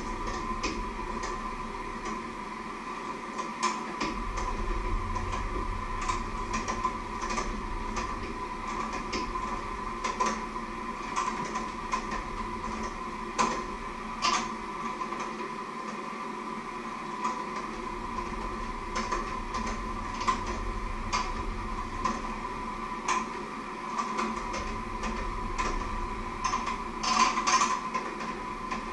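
Steady hum and whine of a running kitchen appliance, under scattered light clicks and clinks of utensils and dishes being handled, with a cluster of louder clinks near the end.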